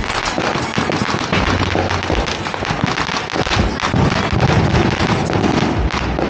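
Many firecrackers and fireworks going off at once: a dense, unbroken crackle of sharp pops, with deeper booms among them.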